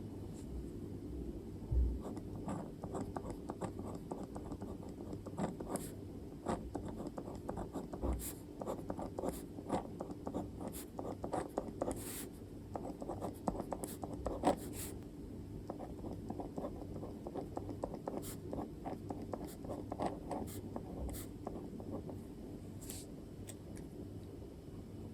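Handwriting on paper: a steady run of short scratching pen strokes and light taps, with brief pauses between words, over a faint low hum.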